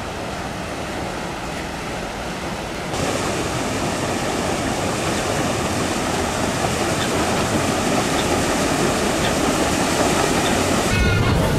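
Paddle wheels of the 1909 paddle steamer Stadt Zürich churning and splashing the lake water as the ship passes close by, a steady rushing noise that gets suddenly louder about three seconds in.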